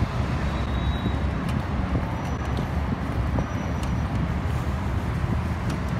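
Steady low rumble of outdoor background noise, with a few faint light ticks scattered through it.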